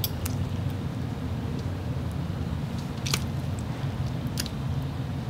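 Asian bullfrog snapping at and gulping live mealworms: a few sharp, wet clicks, the loudest about three seconds in, over a steady low rumble.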